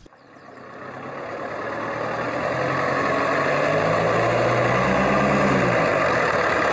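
Truck engine fading in as it draws near, under a steady hiss. Its note rises a little, then drops away about six seconds in.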